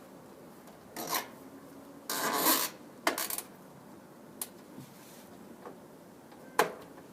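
Hardware being handled: short rasping scrapes and rubbing with a few sharp clicks. The loudest scrape comes about two seconds in, and the sharpest click comes near the end.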